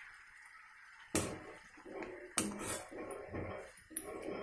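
Steel spoon stirring potato curry in a metal kadai, knocking and scraping against the pan. After about a second of near quiet there is a sharp knock, then another knock and a few lighter clicks with stirring between.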